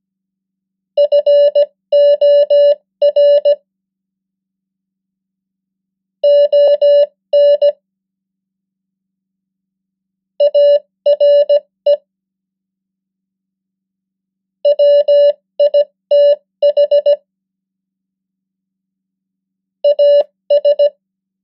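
Morse code sent as a keyed steady beep at 15 words per minute, short dits and longer dahs spelling out common English words for copying practice. Five words are sent, each followed by a silent pause of about three seconds.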